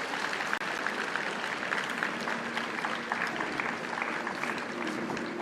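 Audience applauding, a dense steady patter of many hands clapping. Music starts faintly near the end.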